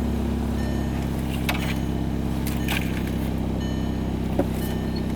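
Volkswagen Golf GTI Mk5's turbocharged four-cylinder engine idling steadily, with a few faint clicks over it.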